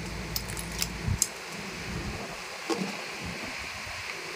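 Small sharp clicks and taps of AA batteries knocking against each other and against a plastic remote-control casing as they are handled, several in the first second or so, then only faint handling. A low background hum stops about a second in.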